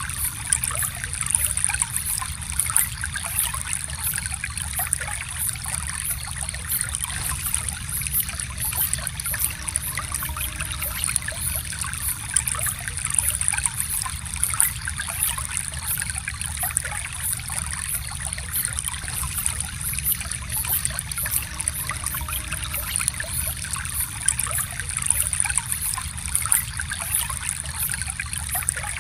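Gentle stream flowing, a steady trickle and babble of water.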